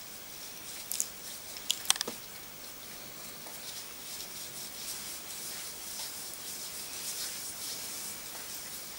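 Gloved hands rubbing foot cream into a bare foot during a massage: faint, steady rubbing of disposable gloves on creamed skin, with a few short clicks about one to two seconds in.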